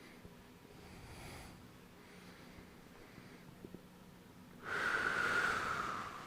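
A person breathing softly and faintly, then a long audible breath out through the mouth lasting about a second and a half near the end, the loudest sound here.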